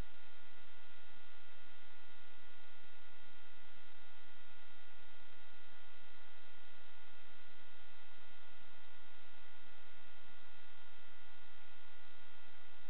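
Steady electronic hum and static hiss with a few fixed high whining tones, unchanging throughout: the empty audio track of an analog FPV video recording, with no sound of the quadcopter's motors.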